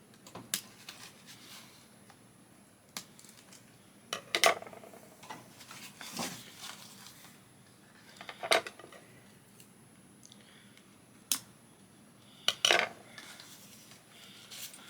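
Doll packaging being worked open by hand: scattered clicks, snips and rustles of plastic and cardboard. The sharpest clicks come about 4.5, 8.5 and 12.7 seconds in.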